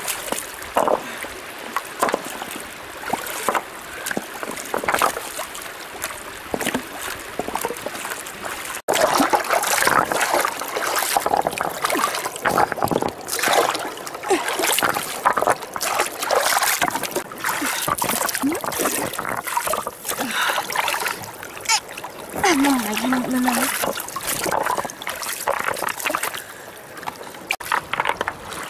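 Water splashing and sloshing amid indistinct voices, with an abrupt cut about nine seconds in, after which the splashing is louder and busier.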